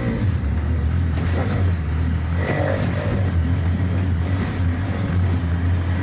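Small motorcycle engine running steadily under a rider and a passenger.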